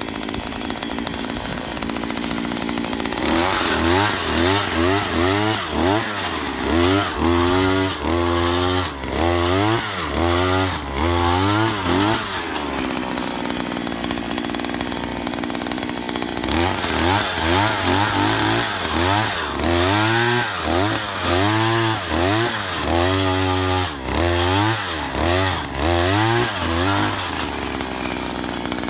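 Oshima 2P earth auger's 49.9 cc single-cylinder two-stroke engine boring holes in soil: it idles, then is revved up and down in quick surges, roughly one a second, drops back to idle about halfway through, and surges again before settling to idle near the end.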